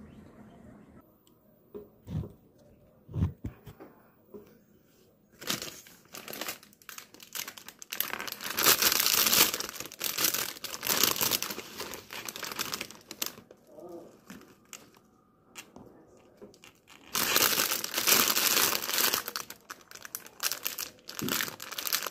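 A clear plastic bag of salad greens being handled, crinkling loudly in long bouts as leaves are pulled out of it, with a quieter pause in the middle. Two dull knocks come in the first few seconds.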